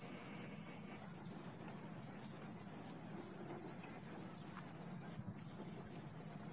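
Steady high-pitched chorus of insects, with a couple of faint small clicks about five seconds in.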